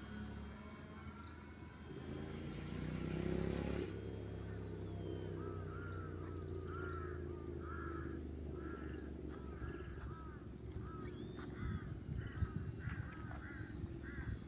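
The RC plane's electric motor and propeller whine, rising in pitch and then throttled back about four seconds in. After that a bird calls over and over, about two short calls a second.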